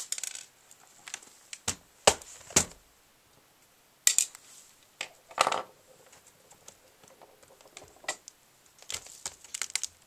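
Scattered light clicks and knocks of plastic and metal as a laptop's opened display lid and LCD panel are handled, with a few quick clicks bunched together near the end.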